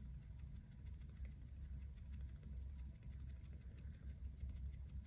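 Quiet room tone: a steady low hum with faint, rapid, evenly spaced ticks.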